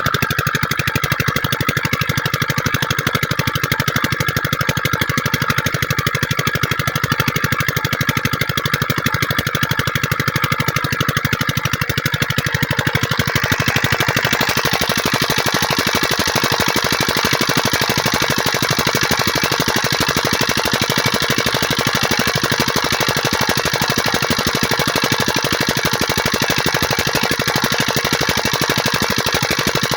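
An 8.5 hp diesel water-pump engine running steadily with a fast, even knock of firing strokes. About 13 seconds in, a steady hiss joins it and stays.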